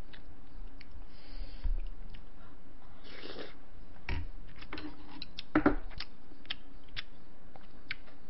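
Eating sounds at a table: scattered light clicks of chopsticks and a spoon against dishes and a stone pot, with chewing. Two louder knocks come about four and five and a half seconds in.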